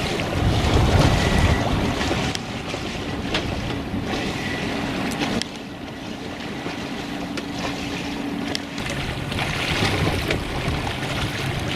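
Wind buffeting the microphone over the rush of water along a sailing yacht's hull as it sails in a breeze. The noise drops somewhat about halfway through.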